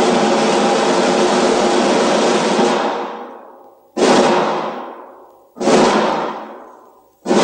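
Film-score percussion: a long sustained crash that dies away about three seconds in, then three more sudden crashes roughly every one and a half to two seconds, each ringing out and fading.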